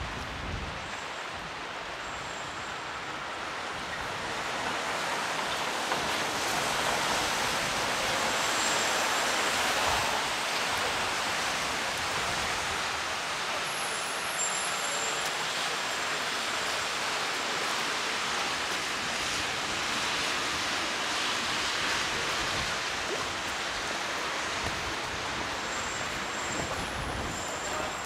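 Steady hiss of heavy rain on a city street, mixed with traffic on wet roads. It swells louder about four seconds in and stays there.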